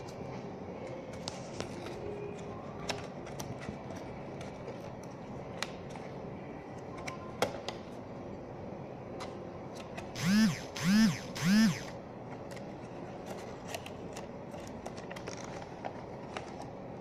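Cardboard retail box of a power bank being handled and opened: scattered light clicks and taps of the card and its tab. About ten seconds in, three loud pitched calls come in quick succession, each rising then falling in pitch, from an unseen source.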